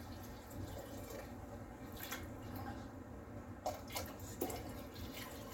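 Hot water being poured from a metal bowl into a terracotta cooking pot, with a few light clicks.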